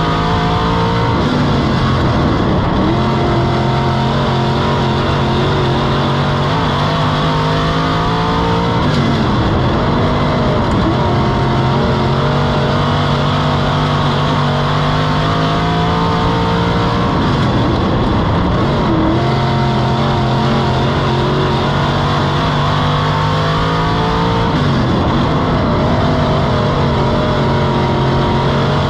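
IMCA Stock Car's V8 engine at racing speed, heard from inside the cockpit: it holds steady revs down the straights, and its pitch drops and climbs back about every eight seconds as the driver lifts into the corners and gets back on the throttle.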